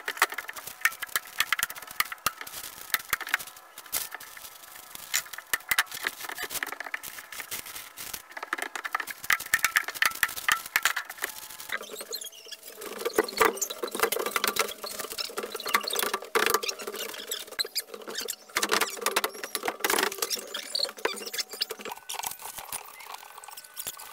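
Construction work on an open floor frame: a quick, irregular run of small knocks, taps and rustles from handling lumber, insulation and plywood. The sound changes about halfway through, becoming fuller and lower.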